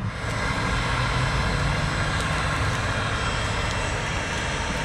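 Electric hot-air charcoal starter with its fan on, blowing a steady rush of air with a faint whine into charcoal briquettes to light them.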